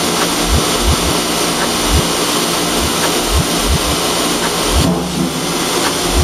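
Milking equipment around a DeLaval milk receiving jar running, a steady mechanical rush with irregular dull low thumps about once or twice a second.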